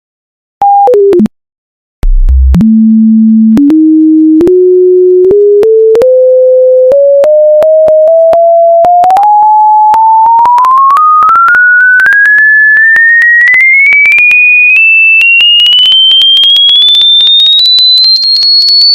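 A loud, pure electronic tone. After a brief tone that drops in steps and a short gap, it starts as a low hum and climbs steadily in small steps to a shrill high pitch. Faint clicks mark the pitch changes.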